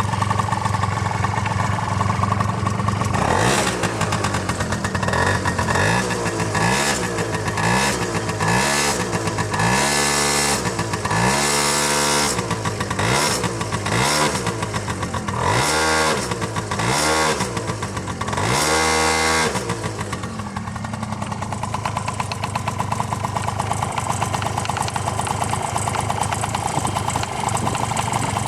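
Honda Tact AF24 scooter's small two-stroke engine, running cold. It idles, is revved up and down in about ten short throttle blips for some fifteen seconds, then settles back to idle. The engine has developed a knock, which came on together with heavy smoking; the owner does not know the cause.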